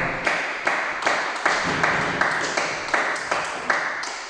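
One person clapping hands steadily, about three claps a second, applauding the end of a table tennis game.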